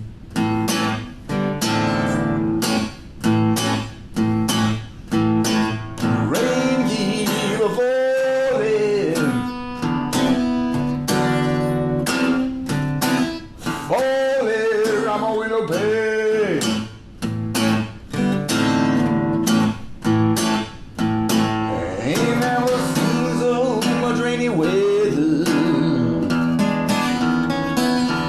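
A blues song: an acoustic guitar strummed in a steady rhythm, with a voice singing a gliding melody over it.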